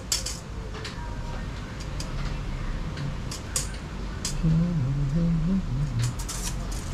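Scattered light clicks and taps of a tape measure being handled and pulled out along the steel rail of a CNC router axis, over a steady low hum. About two-thirds of the way in, a man hums a few low notes, the loudest sound here.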